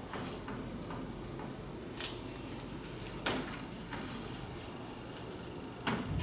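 Writing strokes tapping on a surface: three sharp taps, about two, three and six seconds in, over steady low room hum.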